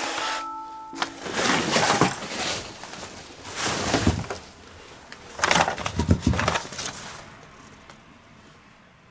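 A mallet-percussion music sting that ends about a second in, followed by three bursts of rustling, crunching noise, the last and loudest around six seconds in, then fading away.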